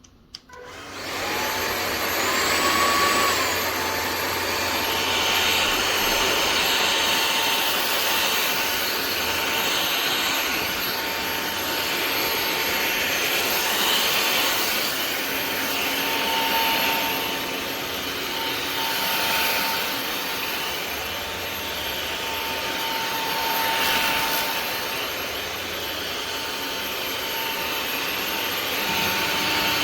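Kermoky cordless stick vacuum switched on with a click, its motor spinning up over a couple of seconds to a steady high whine over rushing air. The level rises and falls a little as it is worked.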